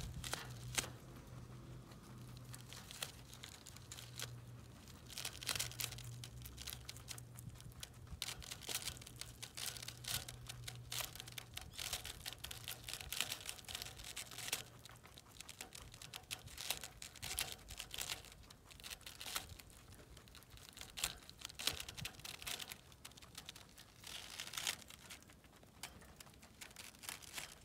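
A rabbit biting off, tearing and chewing broccoli leaves: rapid runs of crisp crunches and leaf tearing, coming in bursts with short pauses between.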